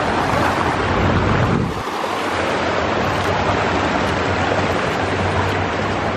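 Ocean surf washing steadily, with wind buffeting the microphone; the sound briefly drops just under two seconds in.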